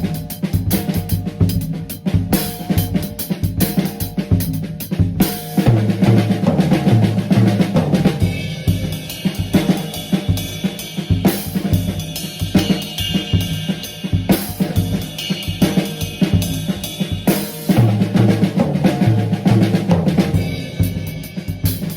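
Drum kit played in a 7/4 groove, snare, bass drum and cymbals, with a break built on a Swiss Army triplet and flam accents. Twice, a run of lower drum strokes steps down in pitch.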